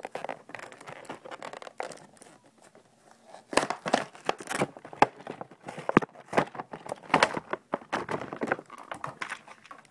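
Toy box packaging being opened by hand: irregular crinkling, tearing and sharp clicks, sparse at first and busier from about three and a half seconds in.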